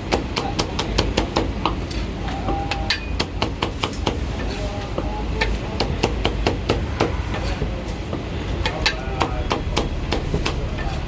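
Meat cleaver chopping roast meat on a chopping block: a rapid run of sharp chops, about three to four a second, broken by short pauses.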